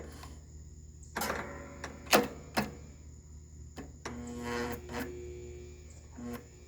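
Jumper wire sparking across a riding lawn mower's starter solenoid with several sharp snaps, the loudest about two seconds in. The electric starter motor then whirs in short spurts.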